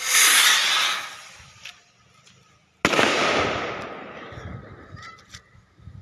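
Two firecracker bangs about three seconds apart, set off at the surface of a pond. Each trails off over a second or two, and the second has the sharper start.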